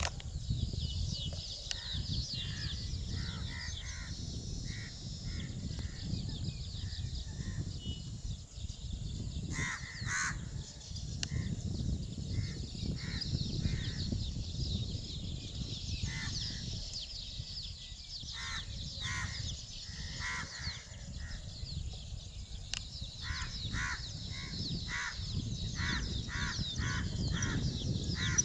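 Birds calling: short calls repeated in runs of a few a second, thickest near the end, over a constant chatter of higher chirps.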